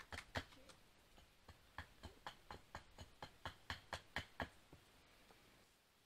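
A run of sharp, evenly spaced taps, about four a second, with a short pause about a second in, stopping shortly before five seconds.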